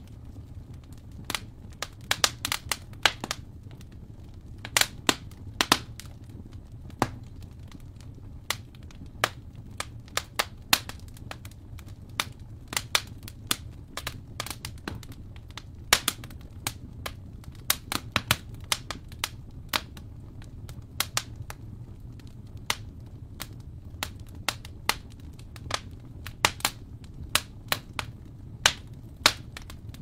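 Wood fire crackling in a fireplace: sharp pops and snaps at irregular intervals, about one or two a second, over a steady low rumble.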